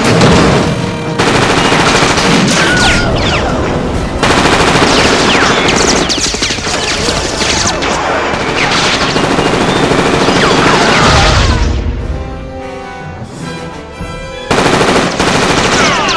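Sustained rapid automatic gunfire with bullet impacts on metal and falling ricochet whines, layered film sound effects over a music score. About eleven seconds in, a low boom comes before a quieter stretch carried by the music, then the gunfire starts again near the end.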